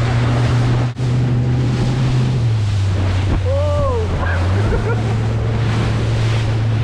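Outboard motor running under way with a steady low drone, with wind buffeting the microphone and the hull running through swells. The engine note drops for a couple of seconds mid-way, then picks back up. A short rising-then-falling cry sounds about halfway through.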